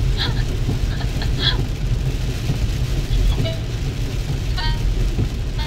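Steady low road and tyre noise inside a car's cabin at freeway speed on a rain-soaked road, with water spray and rain on the car.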